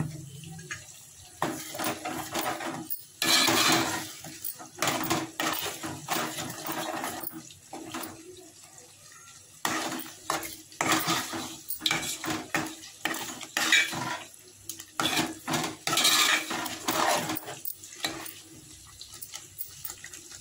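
Metal spoon stirring and scraping through thick brinjal masala curry in a metal pan, in irregular strokes with sharp clinks of metal on metal.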